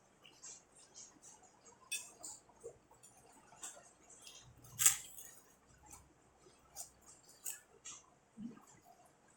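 Close-up eating sounds of rice and vegetable stew being chewed: many small, wet mouth clicks and smacks, with one sharper click about five seconds in.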